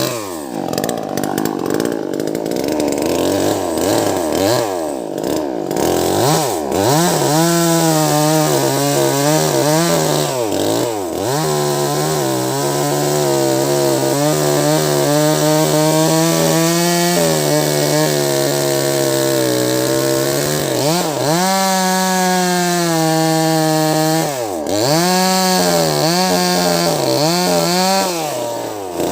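Wagner 580 two-stroke chainsaw at full throttle cutting into a thick log. The engine holds a steady pitch under load, easing off and revving back up several times, with a few quick throttle dips near the end.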